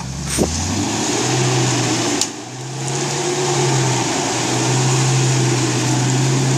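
UAZ Patriot SUV's engine held at high, steady revs as it strains to drive out of deep mud; the revs sag briefly a little over two seconds in, then pick back up and hold.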